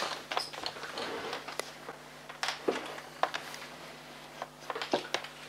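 Quiet room tone with a steady low hum and a few faint, scattered clicks and taps.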